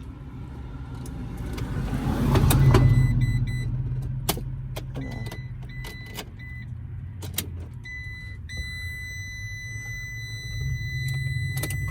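Failed start attempt on a 2014 Ram ProMaster diesel van. A low hum swells about two seconds in, with a few sharp clicks, while a high-pitched dashboard warning beep sounds on and off and then holds steady from about eight seconds in. The owner suspects a bad starter.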